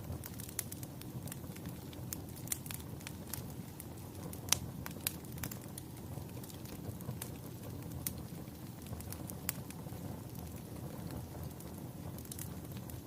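A fire crackling: irregular sharp pops and snaps over a steady low rumble, with one louder pop about four and a half seconds in.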